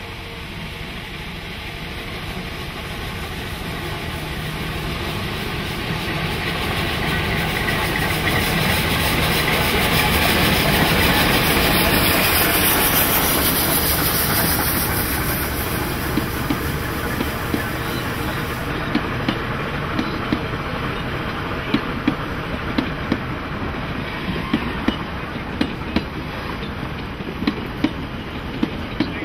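Narrow-gauge Climax geared steam locomotive approaching and passing close by, growing louder to a peak about a third of the way in, with a strong hiss of steam that stops abruptly about two-thirds of the way through. After it, the passenger carriages roll past with regular clicks of the wheels over rail joints.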